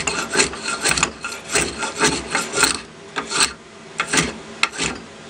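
A rough-sawn wooden fence board being rubbed down by hand with short scraping strokes, about three a second, thinning out to a few slower strokes after about three seconds, as a rough chunk is worked off the surface.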